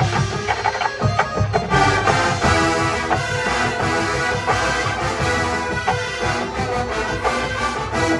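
College marching band playing live: sharp drum and percussion hits open, then the full band of brass and percussion comes in together with sustained chords about two seconds in.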